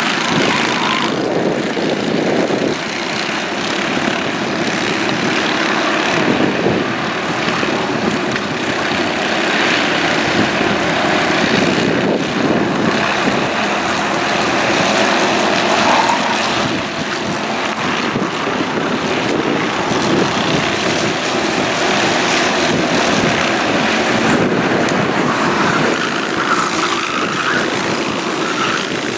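Several racing karts' engines running together as the karts lap the circuit, their pitch rising and falling as they accelerate and slow through the corners.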